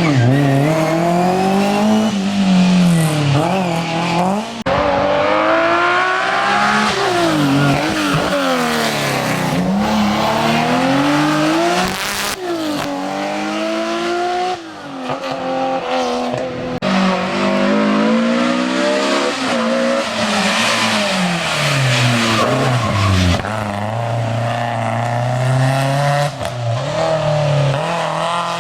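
Historic rally car's engine driven hard on a special stage, revving up and dropping again over and over, every second or few seconds, as it changes gear and lifts for corners.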